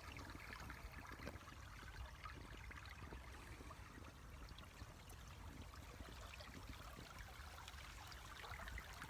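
Faint nature ambience: a quiet, steady rush of flowing water with scattered small ticks.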